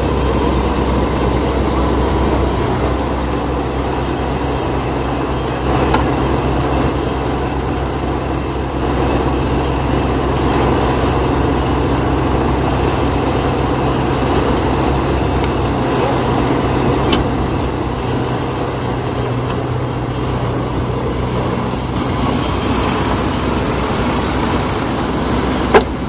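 Bobcat mini excavator's diesel engine running steadily as the machine works its bucket, with a sharp knock just before the end.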